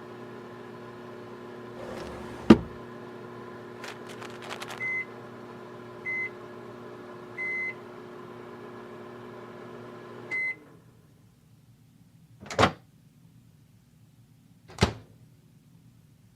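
Microwave oven running with a steady hum, a knock and a few clicks along the way, and short high beeps four times; the hum cuts off about ten seconds in with the last beep, as it heats the hot water bottle. Two sharp knocks follow in the quiet.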